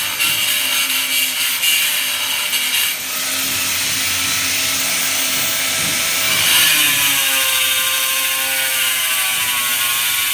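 Electric angle grinder with a diamond blade cutting into a marble slab: a loud, continuous grinding. The sound changes about three seconds in. From about six and a half seconds the motor's whine wavers slightly in pitch as the blade is worked into the stone.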